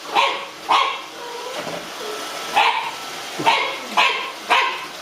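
French bulldog puppy barking in a run of short, sharp barks, about one or two a second, with a brief lull in the middle.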